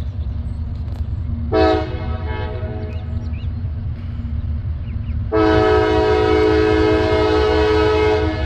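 Diesel freight locomotive's air horn: a short blast, then a long held blast a few seconds later, several notes sounding together as a chord, sounded for a road grade crossing. A steady low rumble lies under it.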